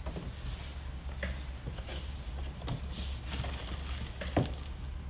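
Packaging being handled: light rustles and small knocks of cardboard, foam insert and a plastic bag as an item is lifted out of a box, with one sharper knock about four seconds in, over a low steady hum.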